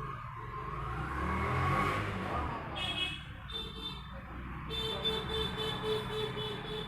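Road traffic: a motor vehicle goes by, then a horn sounds in two short blasts and a longer pulsing one.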